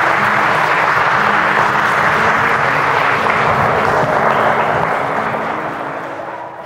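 Wedding guests applauding, with faint music underneath; the applause fades out near the end.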